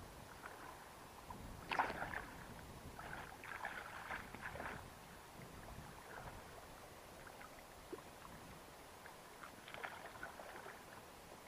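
Water splashing as a hooked rainbow trout thrashes at the surface and a landing net is dipped in, in several short bursts, the loudest about two seconds in and another near the end.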